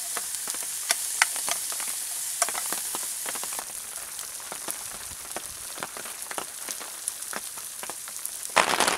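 Sliced meat, mushrooms and onion frying in a pan over campfire embers: a steady sizzle with frequent sharp pops and crackles.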